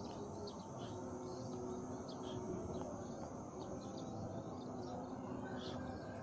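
Quiet open-air ambience: small birds chirping briefly now and then, over a faint steady insect hum and low background noise.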